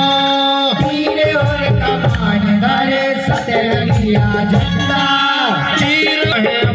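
Gondi folk dance song: a voice singing over a steady, rhythmic hand-drum beat, played loud.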